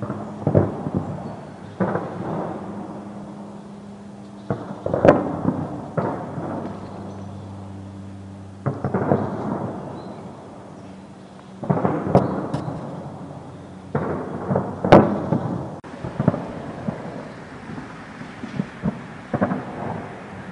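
Explosions and gunfire: about ten booms over twenty seconds, each dying away in a long rolling rumble, with a few sharper cracks among them.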